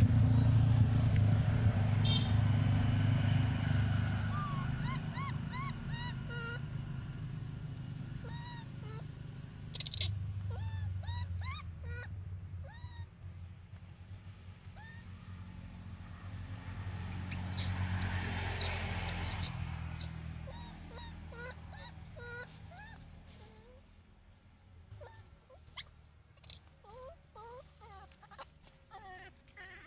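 Baby macaque calling over and over with short, high squeaky coos, each rising then falling in pitch. Under the calls is a low rumble that fades away past the middle. A patch of scratchy clicks comes a little after halfway.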